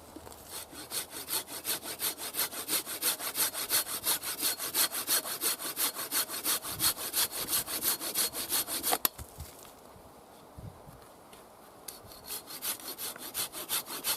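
Folding bucksaw cutting through wood in steady back-and-forth strokes, about two to three a second. A sharp click comes about nine seconds in, and after a short pause lighter strokes start again near the end.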